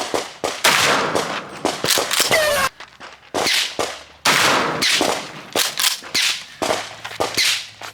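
Shotgun fire at a shooting range: many sharp gunshots in quick, irregular succession, each followed by a ringing echo tail, with other guns on the range firing between them.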